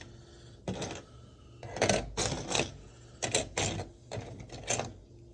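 Plastic Lego truck parts handled and knocked together: about nine short clicks and rattles over four seconds.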